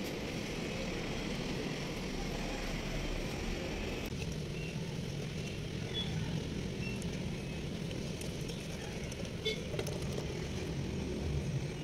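Steady outdoor background noise with a low hum like distant road traffic, a few faint short high chirps, and light clicks and taps about ten seconds in.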